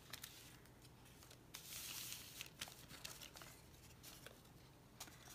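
Faint handling of paper craft pieces: light taps as a small paper envelope is set down on the table, and a brief paper rustle about two seconds in.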